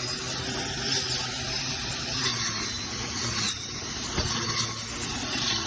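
Cordless 21 V battery weed trimmer with a cutting blade, its electric motor running steadily with an even hum as it cuts vegetation, with a few brief sharp hits.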